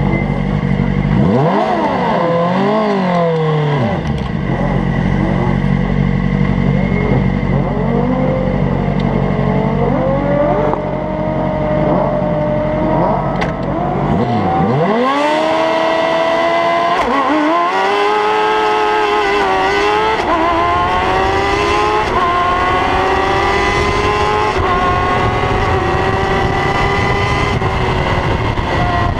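Onboard sound of a Formula X single-seater race car's engine under hard acceleration, its pitch climbing through each gear and dropping back at every upshift. About 14 s in the revs fall steeply as the car brakes and downshifts, then it climbs through the gears again, with a rush of wind hiss on the camera.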